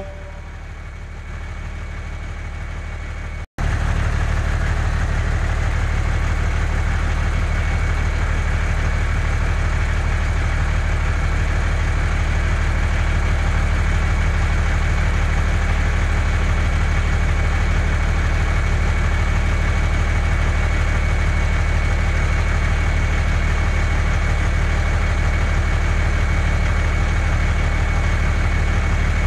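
Truck engine idling steadily with a low hum, cutting in abruptly about three and a half seconds in after a quieter stretch.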